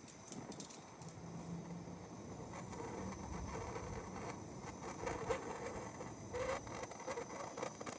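MAP gas torch flame burning steadily while heating a battery cable end for soldering, with a few sharp crackles.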